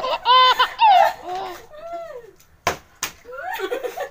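Women laughing hard with high, sliding squeals, then two sharp knocks close together, then quick pulsing laughter.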